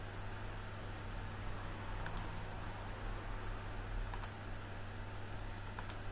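Computer mouse clicking: three pairs of short, sharp clicks about two seconds apart, over a steady low hum and hiss.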